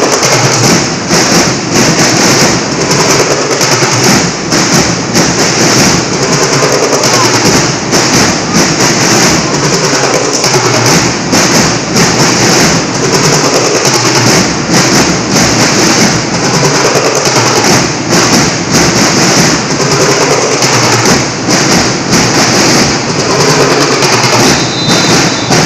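Loud band music with dense, rapid drumming that goes on without a break, accompanying a majorette routine.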